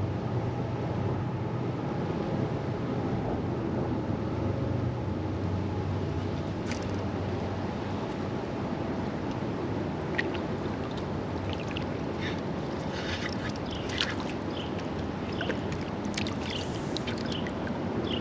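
Steady rushing outdoor noise of creek water and wind, with a few short, faint, high clicks in the second half.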